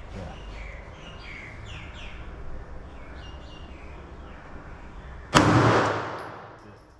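A single 9mm pistol shot about five seconds in: a sharp, loud crack whose echo fades over about a second and a half.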